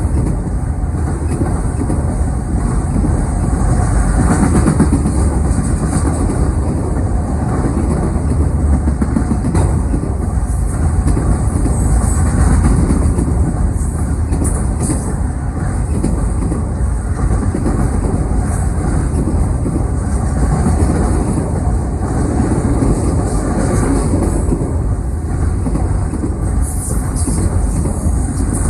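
CN freight train Z149's cars rolling past steadily, a continuous rumble of wheels on rail.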